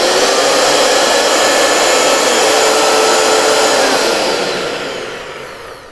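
Cuisinart electric hand mixer running at full speed, its beaters spinning in open air with a loud, steady motor whine. About four seconds in it is switched off and the whine falls in pitch and fades as the motor spins down.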